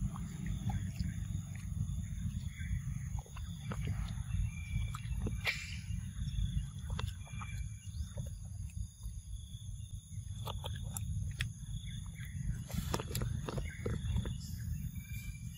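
Low wind rumble on the microphone under a steady high-pitched insect drone, with scattered soft clicks and rustles from macaques handling and eating papaya close by.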